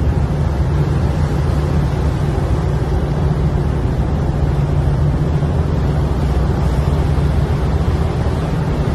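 Boat engine noise: a loud, deep, steady rumble with a low hum in it, from a vessel under way beside a large container ship.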